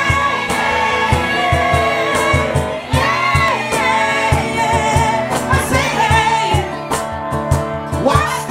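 Live band music: singers' voices over an instrumental backing with a steady beat.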